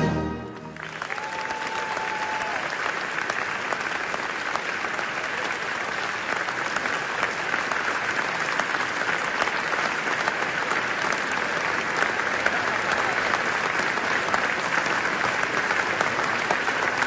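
A brass band's last chord breaks off at the very start and rings away, then an audience applauds steadily.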